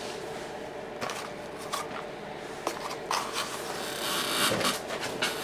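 Cardboard and paper takeaway packaging being handled: rustling, with several short clicks and knocks and a longer burst of rustling about four seconds in.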